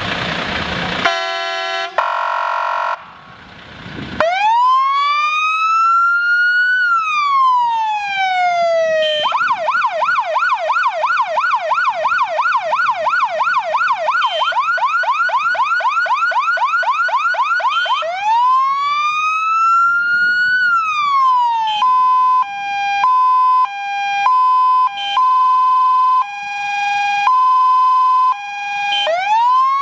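BoCar BOS 200 electronic siren on a Mercedes-Benz Atego 1630 fire engine cycling through its tones. After a few short horn-like tones at the start comes a slow wail rising and falling, then a fast yelp of several sweeps a second, another wail, and a two-tone hi-lo switching between two pitches. The wail starts again near the end.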